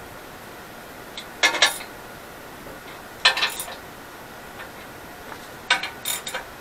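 Hand ratchet clicking in three short bursts, about a second and a half in, at about three seconds, and near the end, as it works bolts on a cast-iron lathe bed.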